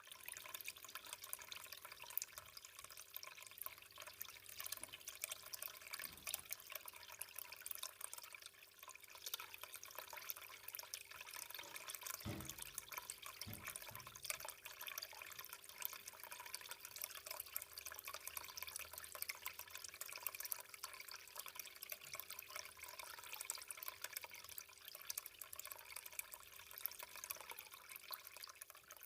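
Homemade decorative water fountain, a plastic tub finished in white cement, running: water trickling and splashing steadily. Two soft low knocks about twelve and a half seconds in.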